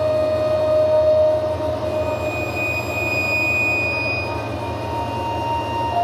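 Electroacoustic drone music: steady, pure held tones at several pitches fade in and out over a dense low rumble. A mid-pitched tone sounds through the first second and a half, a higher whistling tone swells in the middle, and another tone enters near the end.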